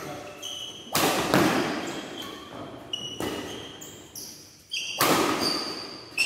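Badminton doubles rally in a large echoing hall: sharp racket strikes on the shuttlecock and thuds of footwork, a handful of hits a second or more apart, with short high squeaks of shoes on the court floor between them.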